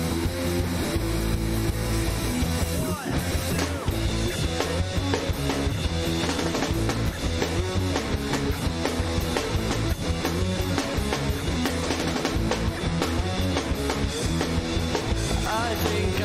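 Garage rock music: electric guitar and a drum kit playing, with no singing.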